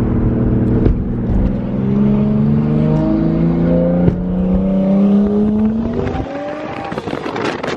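Nissan Skyline R32 GTS-t's turbocharged straight-six, heard from inside the cabin, accelerating hard with its note rising steadily for about six seconds. Near the end it lifts off and the exhaust crackles on the overrun.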